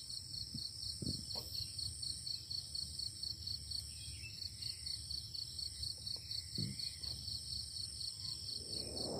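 Insects chirping in a steady chorus, a high pulsing trill at about three to four pulses a second over a thinner continuous high buzz. A couple of faint soft thumps come through about a second in and again later.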